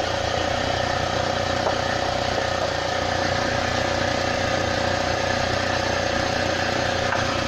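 UAZ Patriot engine idling steadily with the bonnet open, a steady even tone running over the engine note.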